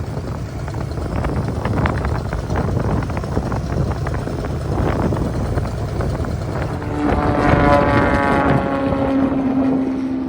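Strong wind buffeting the microphone, a loud rushing rumble with crackles. About seven seconds in, a long held pitched sound rises over it and lasts to the end.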